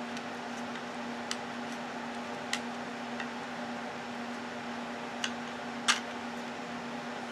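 A handful of sharp plastic clicks as a GoPro in its clear waterproof housing is worked loose from its packaging mount by hand; the loudest click comes about six seconds in. Under them runs a steady hum with hiss.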